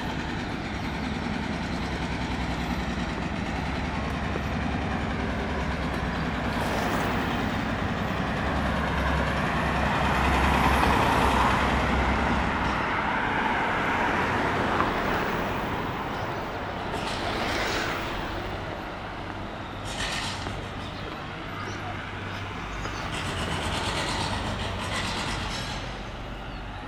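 Road traffic passing on a town street: a heavy vehicle goes by, loudest about ten to twelve seconds in, followed by quieter traffic with lighter vehicles passing.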